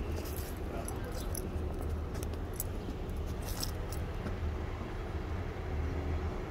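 Steady low outdoor rumble of vehicle engines and traffic, with scattered light clicks that come thickest in the first second and again about three and a half seconds in.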